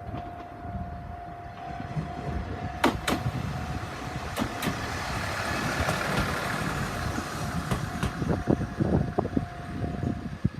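A Tenryu Hamanako Railroad diesel railcar passing over a level crossing. Its wheels click in pairs over the rail joints, and the running noise swells as it goes by. The crossing alarm's steady tone sounds underneath and stops near the end.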